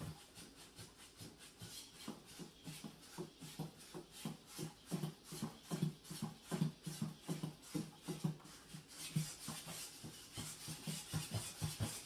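Feet of a small quadruped robot dog tapping on a hardwood floor as it walks, several quick steps a second in an uneven rhythm.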